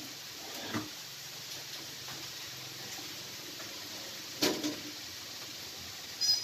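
Steady rain falling on a flooded yard and standing puddles, with a few short sharp sounds on top, the loudest about four and a half seconds in and a brief high chirp near the end.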